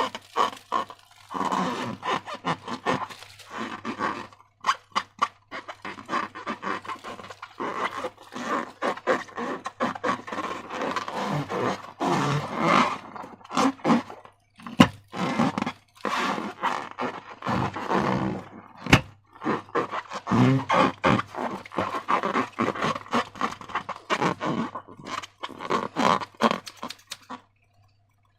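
Slime being squeezed and kneaded by hand: irregular wet squelching with many sharp sticky clicks and pops, stopping about a second before the end.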